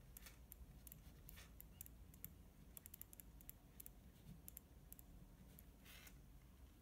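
Faint, irregular ticking and scratching of a pen writing on paper, over near silence.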